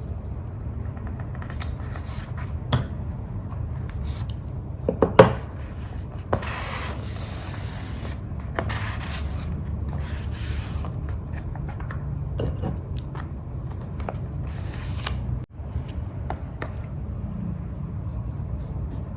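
Paper and craft materials being rubbed and scraped by hand during journaling, with a few short sharp taps about five seconds in, over a steady low background hum.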